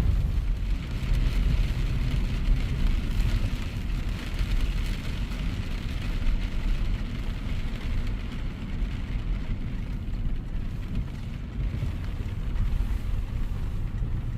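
Car driving on a rain-wet road, heard from inside the cabin: a steady low road rumble with tyre hiss from the wet surface.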